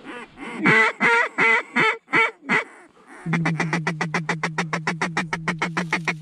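Mallard duck call blown by a hunter: a falling series of about seven quacks, then after a short pause a fast feeder chatter of about eight or nine notes a second over a steady low note.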